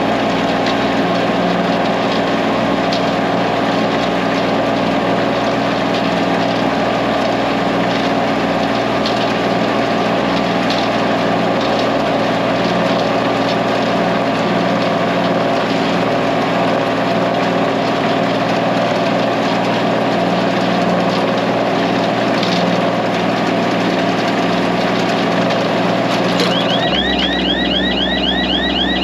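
Diesel tractor engine running steadily while pulling a small round hay baler. About two seconds before the end, the engine note changes and a fast, high, repeating rising chirp starts.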